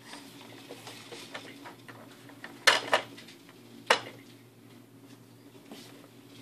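Plastic toys on a baby jumper's activity tray clicking and clacking as a baby's hand works them, with three sharp knocks around the middle.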